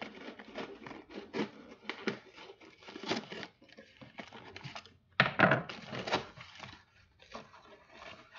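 Cardboard box and brown paper packing being torn open and crumpled by hand: irregular ripping and rustling, loudest about five seconds in.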